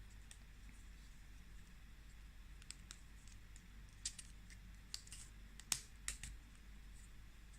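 Wooden puzzle pieces clicking and knocking against each other as they are slid apart by hand: scattered light clicks, a cluster of sharper knocks about four to six seconds in.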